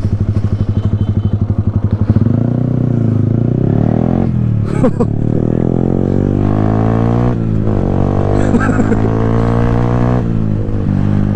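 Yamaha R15 V3's single-cylinder engine through a loud aftermarket Akrapovic exhaust: a couple of seconds of throbbing low-rev running, then the bike accelerates through the gears, its pitch climbing and dropping back at each of about three upshifts.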